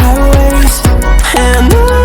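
Background pop music with a steady beat and a heavy bass, playing between sung lines with no vocals in this stretch.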